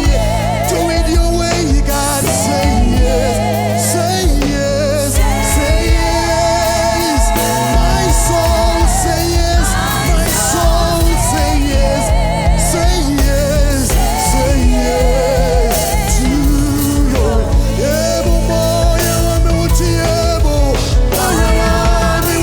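Live gospel worship music: a band keeps playing under singers who hold long notes with vibrato and glide between pitches, without clear words.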